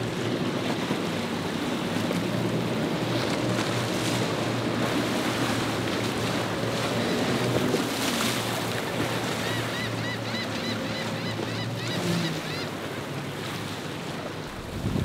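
Outboard-powered center-console boats running through choppy inlet water: a steady low engine drone under the splash and rush of the hulls through the waves, with wind buffeting the microphone.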